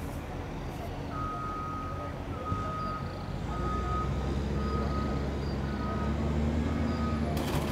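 A vehicle's reversing alarm beeping steadily, about one beep a second, starting about a second in, over a low engine rumble that grows louder partway through.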